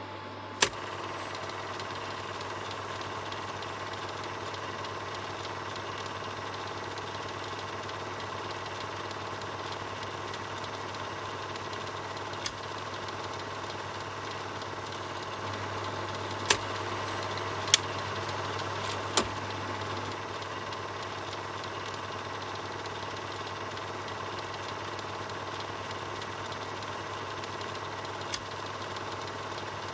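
Film projector running steadily: a continuous mechanical whir over a low hum, with occasional sharp clicks, three of them about a second apart just past the middle.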